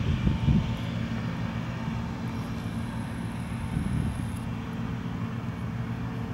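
John Deere 9660i combine harvester running steadily while harvesting barley, a steady low engine drone.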